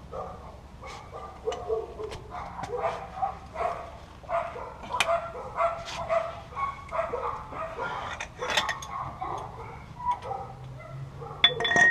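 A dog barking and yipping repeatedly in short, irregular calls, mixed with sharp metallic clicks and clinks.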